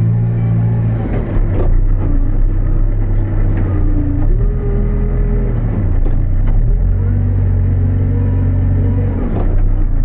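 New Holland B95B backhoe loader's diesel engine working under load, its pitch dipping and rising again several times as the hydraulics are worked. A few short clanks sound over it.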